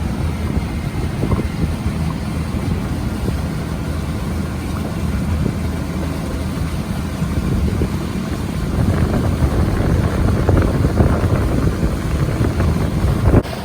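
A small motorboat's engine running steadily under way, with wind noise on the microphone. It grows a little louder about nine seconds in, and the sound breaks off abruptly near the end.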